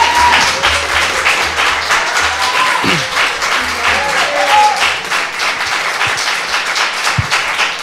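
A crowd clapping in an even rhythm, with voices chanting over the clapping.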